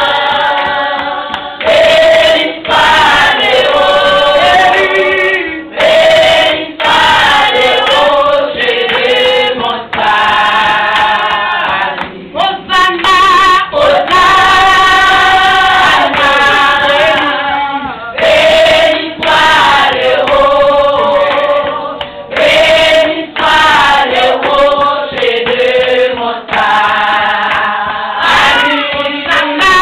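A group of women singing a worship song together, loud, in phrases of a second or two broken by brief pauses.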